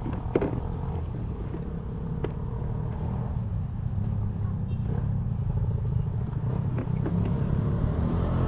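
Motor scooter engine running with a steady low rumble that grows slightly louder toward the end, with a few light clicks and knocks.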